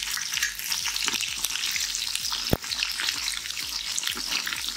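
Chopped shallots sizzling and crackling in hot oil in a metal pot, with one sharp click about halfway through. A ladle stirs them near the end.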